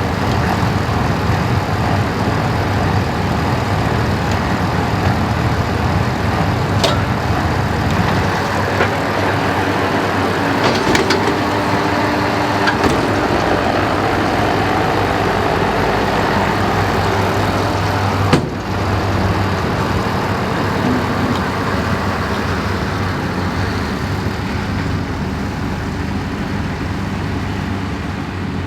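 New Holland TM155 tractor's six-cylinder diesel running steadily under load while pulling a working Claas Variant 385 round baler. There are a few short metallic clanks from the machinery and one sharp knock about 18 seconds in. The sound grows slightly quieter near the end.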